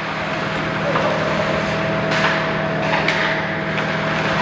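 Ice hockey rink sounds during play: skates scraping the ice and a few sharp clacks of sticks hitting the puck, over a steady low hum.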